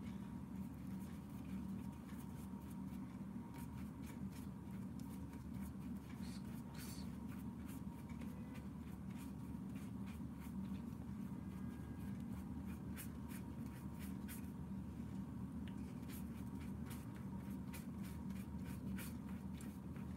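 Paintbrush bristles stroking and dabbing on paper in short strokes: a soft scratchy brushing with many small irregular ticks, over a steady low hum.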